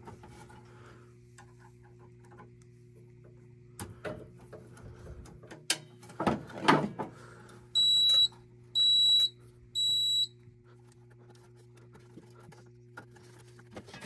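Fire alarm control panel's trouble sounder beeping three times, a high steady tone about half a second long, once a second, signalling a trouble condition with the annunciator wiring disconnected. A few short clicks of wire handling come before the beeps, over a low steady hum.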